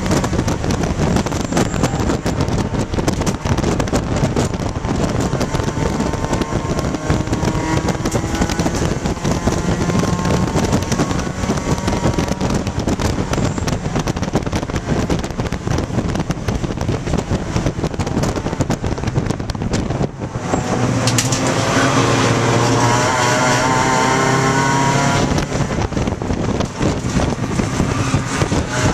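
1995 Dodge Neon ACR race car heard from inside the cabin at speed: its four-cylinder engine runs hard under load over loud road noise and cabin rattle. About two-thirds of the way through the engine drops off briefly, then pulls again with a clear, slowly rising engine note.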